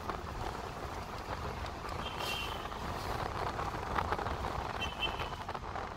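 Steady low rumble of a vehicle in motion, heard from inside the cabin, with two brief high-pitched tones, one about two seconds in and another about five seconds in.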